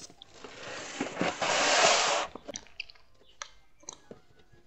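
A cardboard box full of books being slid out by hand, a scraping rustle that lasts about two seconds and stops abruptly. Then a few faint taps as the books inside are handled.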